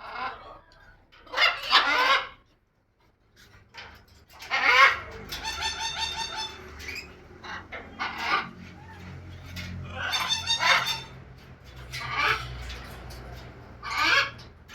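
Birds calling loudly and repeatedly, with about eight separate calls; two of them, near the middle, are long, rapidly pulsing runs.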